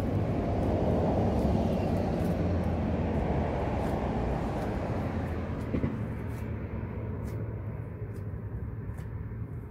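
A road vehicle driving past, its tyre and engine noise loudest in the first couple of seconds and then slowly fading away.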